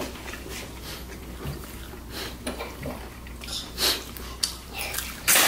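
Quiet eating sounds of a man eating grilled corn on the cob: scattered soft clicks and small knocks of the plate and cutlery, over a low steady hum. A short loud noise comes just before the end.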